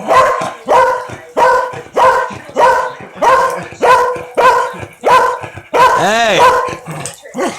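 Dog barking over and over in a steady rhythm, about three barks every two seconds, in agitated reaction to the crackling of Pop Rocks candy.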